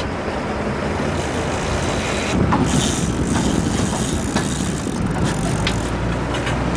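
Game-fishing boat's engine running under a steady rush of wind and water, growing louder about two and a half seconds in, with a few sharp clicks and knocks.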